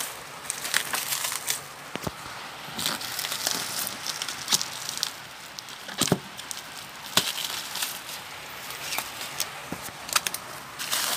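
Plastic film wrap and packing tape crinkling and crackling as they are peeled and pulled off a wrapped container, with many scattered sharp clicks.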